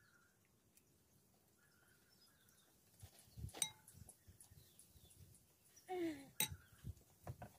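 A metal spoon clinking and knocking against plates and a glass dish a few times during eating, the sharpest strikes a little over three seconds in and about six seconds in. Just before the second strike there is a short low falling vocal sound.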